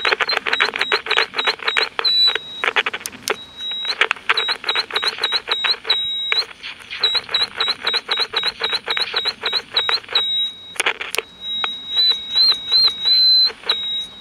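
Audition AM transistor pocket radio squealing through its small speaker: a high steady whistle that hops up in pitch in quick little chirps, broken by dense scratchy crackling from the freshly sprayed volume control. A squeal like this is usually due to an open AVC filter capacitor turning the set into a feedback oscillator.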